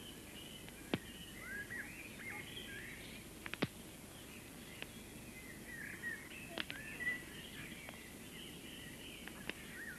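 Outdoor birdsong: many small birds chirping and twittering over a steady background hiss, with a few sharp isolated clicks.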